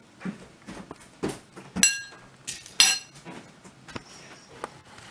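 A metal spoon dropping into a ceramic cereal bowl: a few light knocks, then two loud ringing clinks about a second apart.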